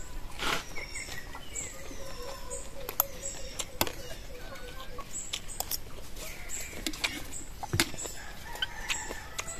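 Scattered sharp clicks and clinks of a metal spoon and snail shells against a bowl during eating, with birds chirping over and over.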